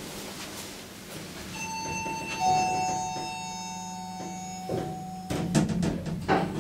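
Hydraulic elevator: a steady low hum of its drive runs and stops near the end, while an electronic chime of two held tones sounds, the higher one about a second and a half in and a lower one a second later. A run of knocks and clunks follows in the last second or so.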